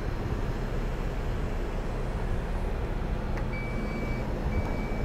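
Steady low rumble of wind buffeting the microphone. About three and a half seconds in there is a click, then two high electronic beeps from the vehicle, the second one shorter.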